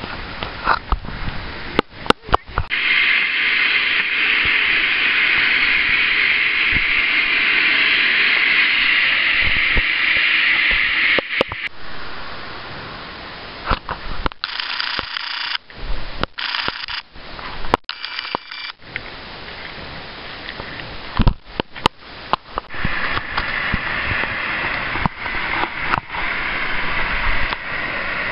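Steady loud hiss of steam from Yellowstone's thermal vents, broken by many sharp clicks and knocks. The hiss drops away for several seconds in the middle and comes back near the end.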